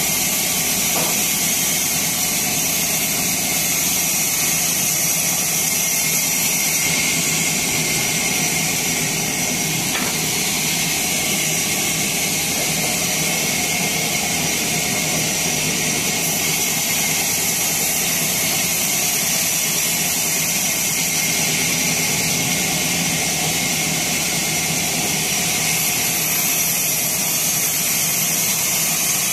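Sawmill saw running steadily as timber is sawn: a constant, loud high-pitched noise over a low hum.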